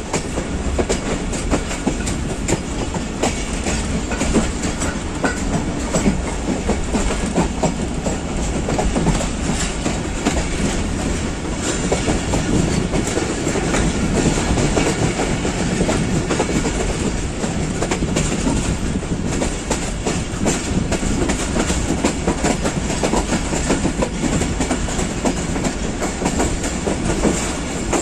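Passenger train running along the track, heard through an open carriage window: a steady rumble with the wheels clacking over rail joints.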